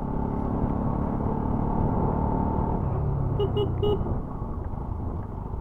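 Motorcycle engine running steadily on the move, with wind and road noise. About three and a half seconds in, a horn toots three times in quick succession.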